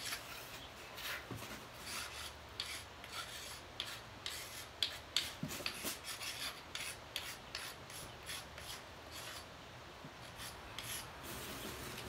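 Chalk scratching in many short, irregular strokes as someone writes words by hand.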